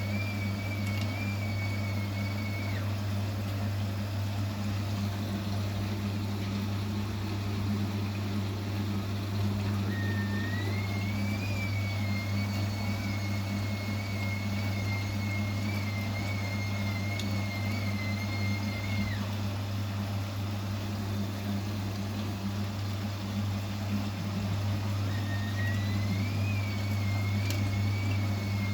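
Vestel CMI 97302 washing machine running a wash cycle: a steady low hum, with a high, slightly wavering motor whine that comes and goes as the drum turns. The whine is heard for a few seconds at the start, for about nine seconds in the middle, and again near the end.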